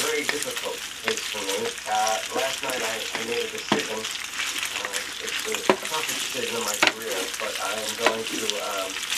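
Cooked penne sizzling in a hot pan while two wooden spatulas toss and stir it, with a few sharp knocks of wood against the pan.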